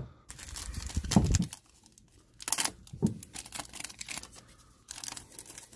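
Foil trading-card pack wrapper crinkling and being torn open by hand, in three short bursts of crackly rustling and tearing.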